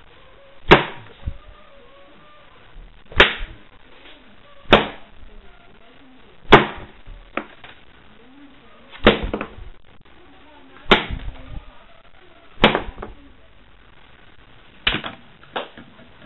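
Playing cards thrown one after another and smacking into a paper-covered board. There are about nine sharp thwacks, roughly every two seconds, and some are followed by a few smaller knocks.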